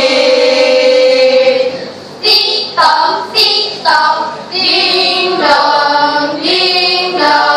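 A school choral-speaking troupe of girls and boys singing together in unison: one long held chord, then short sung phrases broken by brief pauses.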